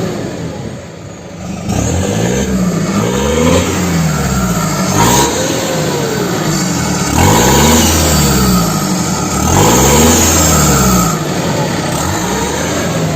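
Ford F250's four-cylinder Cummins turbo-diesel revved repeatedly with its exhaust cutout (diffuser) open right behind the turbocharger, the revs starting about two seconds in, each one rising and falling in pitch. A high turbo whistle sounds over the revs, and the turbo noise is loud through the open cutout.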